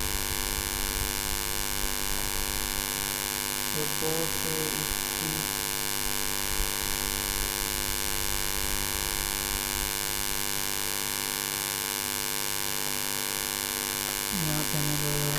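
Steady electrical hum and hiss from the recording setup, with a short voice sound about four seconds in and speech starting near the end.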